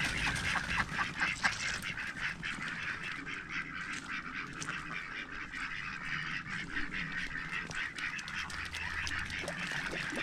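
A flock of ducks quacking, with many calls overlapping in a steady chatter.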